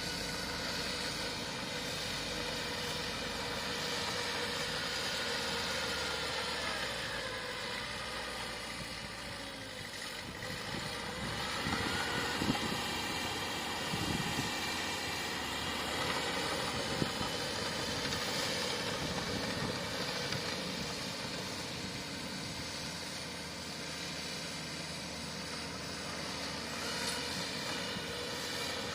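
Bulldozer's diesel engine running steadily, its pitch rising and falling slowly as it works, with a few sharp knocks midway.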